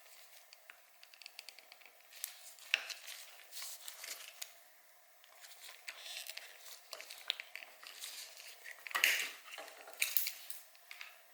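Zip ties being cut and pulled off a dirt bike's wiring: scattered sharp plastic clicks and snips with crinkling and rustling, in irregular bursts.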